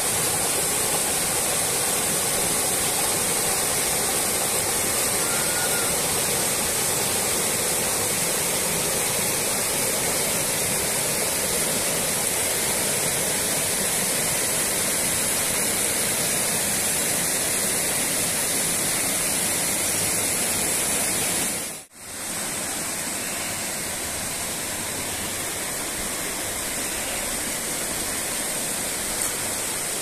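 Small waterfall and rocky stream, water rushing steadily over boulders. The sound cuts out for a moment about two thirds of the way through, then carries on a little quieter.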